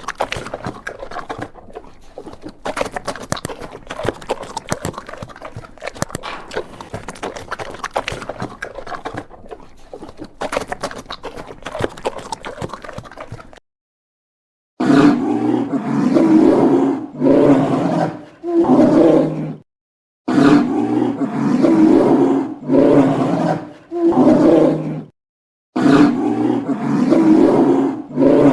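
Bear vocalizing. First a long, crackly, noisy recording, then after a short break a run of about seven loud roars, each a second or two long with brief pauses between them.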